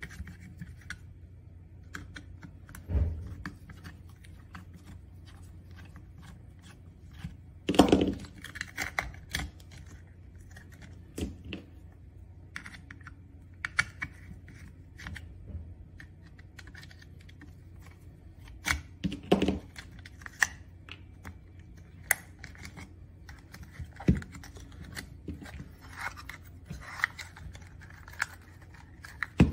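Irregular small clicks, scrapes and taps of a Phillips screwdriver working screws out of an electric scooter's plastic display housing, mixed with hands handling the plastic parts and wiring. A few louder knocks stand out, about 8 seconds in, near 19 seconds and near 24 seconds, over a faint steady low hum.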